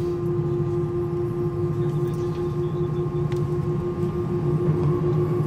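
Airbus A320 cabin noise heard from a window seat with the aircraft on the ground: a steady hum from the engines and air systems, with a constant mid-pitched whine and a fainter higher whine on top.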